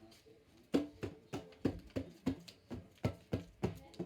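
Scissors cutting paper in a quick series of sharp snips, about three a second, starting about a second in.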